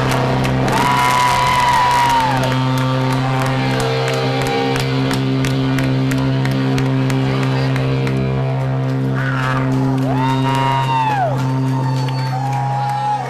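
Live heavy metal band letting a distorted chord ring out, with whoops and shouts from the crowd rising and falling over it.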